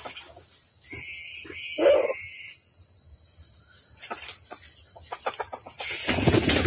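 A single short animal call about a second in, loudest near its end, over a steady high whine, with a few clicks and a loud noisy stretch near the end.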